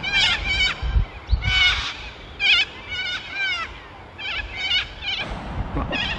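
Birds calling: clusters of short, wavering high chirps repeating every half second or so. A couple of low thumps come about a second in.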